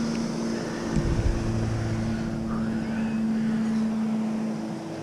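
A steady low hum with a faint hiss over it, and a brief low thump about a second in.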